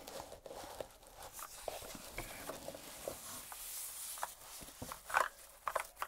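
Foam packing bag rustling and crinkling as a mechanical keyboard is slid out of it, then a few key clacks from the keyboard's Outemu Brown switches near the end.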